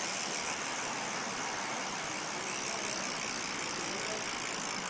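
A BMX wheel spun by hand, turning freely on its hub bearings with a steady sound, a sign that the bearings are good.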